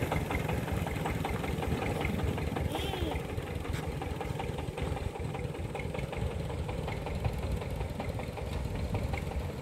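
Old diesel engine of a mobile rice-milling rig chugging with a rapid, even exhaust knock (the 'ledok' of an old diesel) as it drives off, slowly fading.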